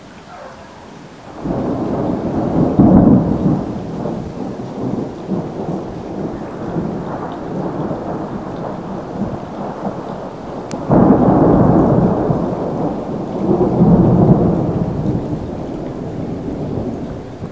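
Two peals of thunder: each starts with a sudden crack, the first about a second and a half in and the second about eleven seconds in, then swells into a low rumble and dies away slowly over several seconds.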